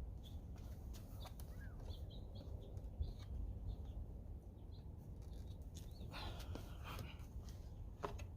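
Faint clicks and a rustle of plastic mirror-housing parts being handled and pushed together, over a low steady rumble, with short high chirps of small birds in the background.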